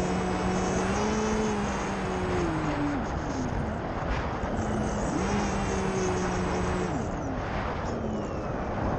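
Brushless motor and propeller of an FPV flying wing (iFlight Xing 2306 2400kv) whining in flight over a constant rush of wind on the onboard camera. The whine drops away about three seconds in, comes back with a quick rise about five seconds in, and drops again near the end.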